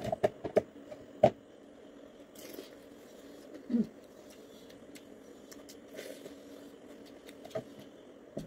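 Eating sounds: mouth clicks and chewing of roasted pork eaten by hand, with a quick run of sharp clicks in the first second or so and a few more scattered later, over a faint steady hum.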